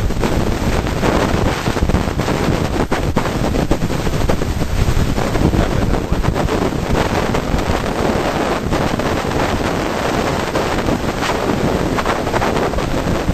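Loud, dense crackling noise full of sharp crackles, steady throughout and cutting off abruptly at the very end.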